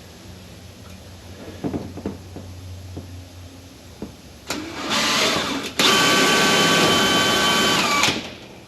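A small motor-driven tool run in two bursts, a short one and then one of about two seconds with a steady whine that drops in pitch as it stops. A few knocks come before it.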